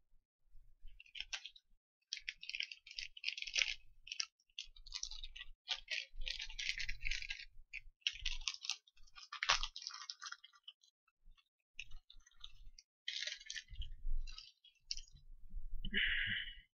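Irregular scratchy rustling and light clicks of hands handling small parts and tools at a workbench, in short bursts with brief pauses, plus a few soft thumps.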